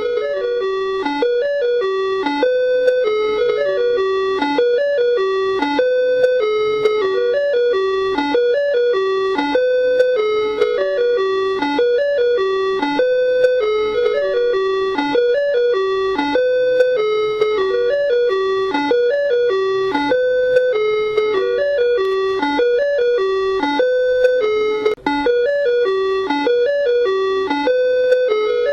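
Ice cream van jingle: a simple, tinkly electronic chime melody, one short phrase repeating over and over.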